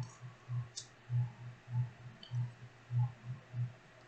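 Latch hook and rug canvas being worked by hand: soft low thumps repeating about every half second, with a few light clicks.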